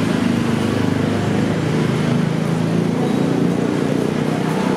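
City street ambience: a steady rumble of passing motor traffic with people's voices mixed in.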